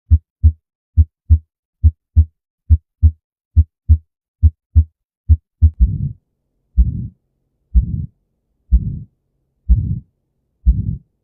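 Heart sounds on auscultation: crisp lub-dub pairs (S1 and S2) at about 70 beats a minute, then from about six seconds in each beat is drawn out into a whooshing heart murmur lasting nearly half a second, about one a second.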